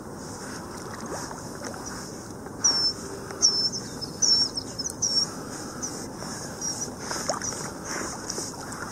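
Steady wash of water and wind at the surface. From about two and a half to five seconds in, a bird calls in a quick run of short high chirps, the loudest sounds here.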